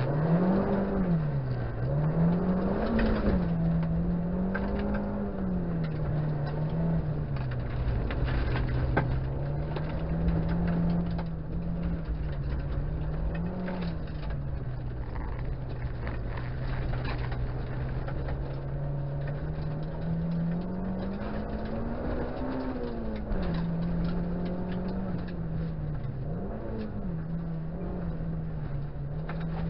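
Honda Integra DC2's four-cylinder engine heard from inside the cabin, revving up and down again and again as the car is driven hard through a gravel course. Under it is a constant rough noise of tyres on wet gravel, with many small clicks and ticks.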